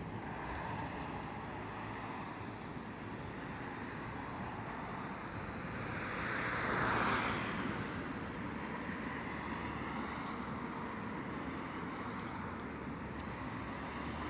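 Road traffic: a steady hiss of tyres and engines, with one vehicle passing close about seven seconds in, swelling and then fading.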